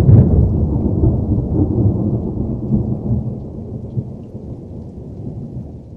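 A sudden loud crash of thunder that rolls on as a deep rumble and slowly fades over several seconds, laid on as a sound effect.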